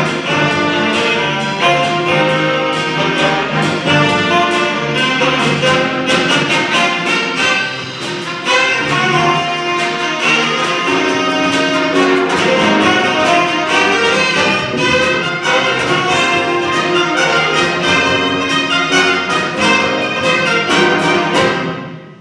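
Jazz big band playing, with trumpets and trombones over a steady drum beat. The music stops near the end.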